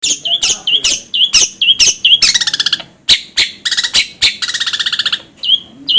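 Long-tailed shrike (cendet) singing: a fast series of sharp chips, about four a second, each ending in a short downward hook, broken twice by rapid buzzy rattling phrases.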